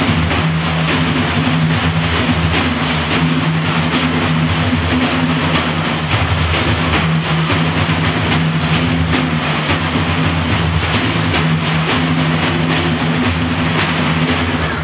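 An ensemble of about a dozen large frame drums struck by hand together, a dense, unbroken drumming with a deep steady resonance and no pauses.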